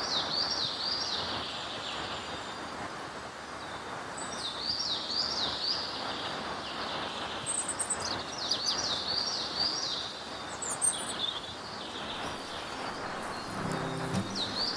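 Birds singing in short repeated phrases of rapid chirps, four times with gaps between, over a steady outdoor noise haze. Low music notes come in near the end.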